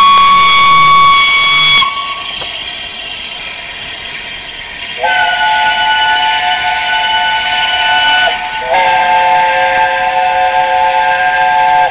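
Steam locomotive whistle of the A1 Pacific 60163 Tornado blowing three blasts with a hiss of steam. The first is a short single note at the start. About 5 s in comes a longer chord of several notes for about three seconds, and a third blast runs from about 9 s in to the end.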